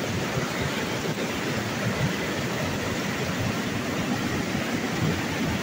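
Fast mountain river rushing over rocks in white-water rapids: a steady, unbroken rush of water.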